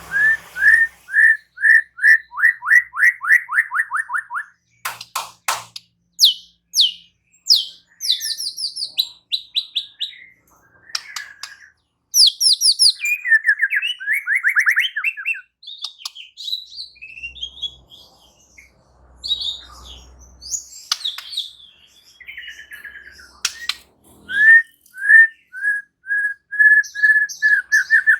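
White-rumped shama (murai batu) singing a loud, varied song. It opens with a run of repeated whistled notes, moves through quick falling sweeps and mixed phrases, and ends in another fast series of repeated notes.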